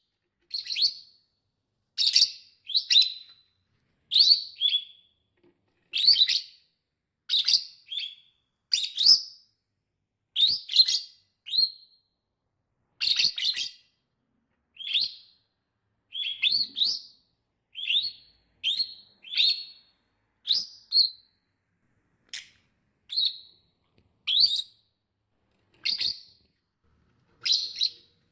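Lovebird giving short, high-pitched chirping calls, one or two at a time about every second, with silent gaps between.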